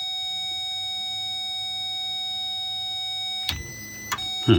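Power Probe circuit tester sounding a steady high-pitched tone, the tester's signal that it has a ground and continuity. The tone cuts off about three and a half seconds in and sounds again briefly near the end, over a faint low hum.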